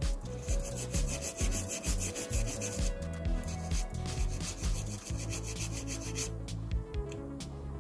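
Toothbrush bristles scrubbing sea-water corrosion off a Bluetooth speaker's circuit board in rapid back-and-forth strokes. The strokes thin out near the end.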